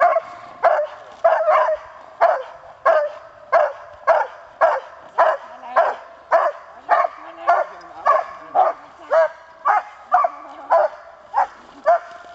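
A young Groenendael (Belgian Shepherd) barking in a steady, unbroken run, a little under two barks a second: agitation barking at the helper during protection bitework.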